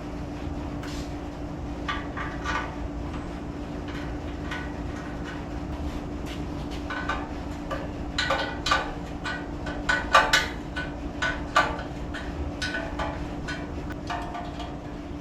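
Metal parts and hand tools clinking and clanking as they are handled, in irregular knocks that come thickest about eight to twelve seconds in, over a steady low hum.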